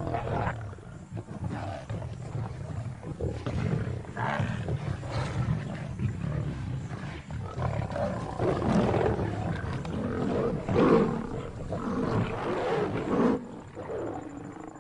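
Lions calling over a buffalo kill: rough roars and growls in irregular bursts, busiest and loudest from about eight seconds in.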